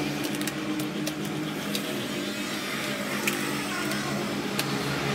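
Crackling and crinkling of a glossy vinyl sticker sheet and its backing paper being handled and peeled, heard as scattered irregular clicks over a steady low mechanical hum.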